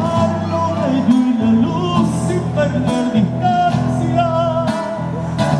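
Live performance of a Latin American ballad: guitar-backed music with steady bass notes under a bending melodic line.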